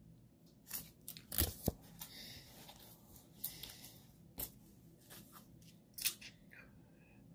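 Comic books in glossy plastic sleeves being handled and swapped: intermittent rustling and crinkling, with a few sharp taps and clicks as they are set down and picked up.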